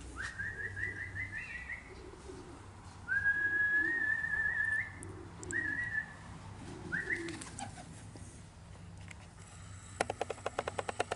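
Man whistling to call racing pigeons down into the loft: four rising, warbling whistles, with soft pigeon cooing beneath. About ten seconds in, a rapid fluttering rattle starts.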